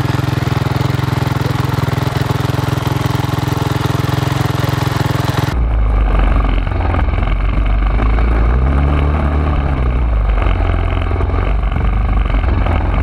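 Motorcycle engines running steadily. Partway through, the sound changes abruptly to a deeper rumble, and a few seconds later one engine's pitch rises and falls once.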